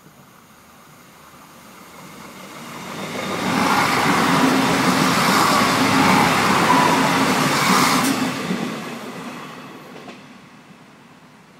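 Irish Rail Class 29000 four-car diesel multiple unit passing by. Its engines and wheels on the rails swell over a couple of seconds, stay loud for about four seconds as the train goes past, then die away.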